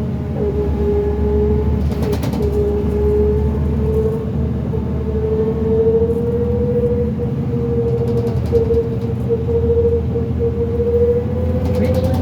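A 2005 New Flyer D40LF transit bus's Cummins ISL diesel running under load, with a strong steady whine from the drive axle that slowly climbs in pitch as the bus gathers speed. The uploader calls it a weird axle noise. A few brief rattles come in through it.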